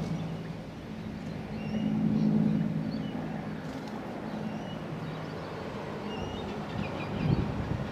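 Bell 214B-1 helicopter in flight: a steady low hum of rotor and turbine that swells about two seconds in and then eases off.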